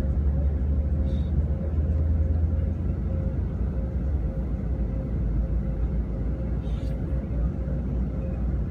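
Car's engine and road noise heard from inside the cabin: a steady low rumble with a faint constant hum.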